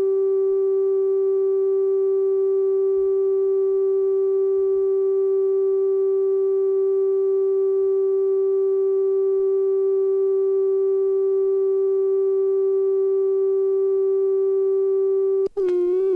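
A steady, buzzy electronic tone held at one mid-low pitch, unbroken for about fifteen seconds. Near the end it cuts out for an instant and wobbles down and back up in pitch.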